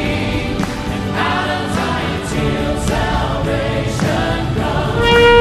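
Choral music, voices singing over instrumental backing, with a loud held note coming in near the end.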